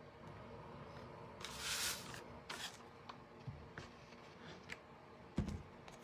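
Craft-table handling noises from fitting thin painted wood pieces and working a cordless hot glue gun: a brief brushing rustle about a second and a half in, a few light clicks and taps, and a louder thump near the end.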